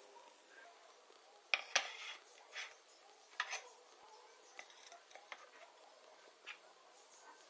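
Ceramic plates being set down on a stone countertop: two sharp clinks about one and a half seconds in, more a second or two later, then lighter taps and knocks.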